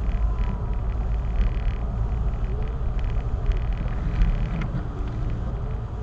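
Seat Leon 1.9 TDI diesel driving slowly along a wet street, heard from inside the cabin: a steady low rumble of engine and tyre noise.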